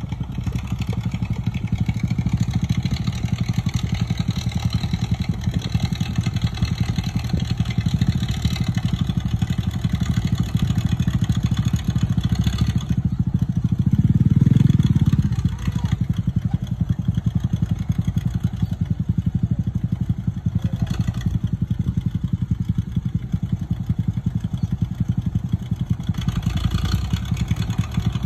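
An old farm tractor's engine running steadily, with a small motorbike engine over it, and a louder surge about halfway through.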